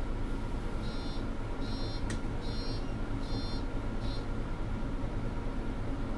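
Mercedes-Benz NG 265 articulated city bus heard from inside, its engine running steadily while an electronic signal beeps five times, about once a second, with a single sharp click about two seconds in.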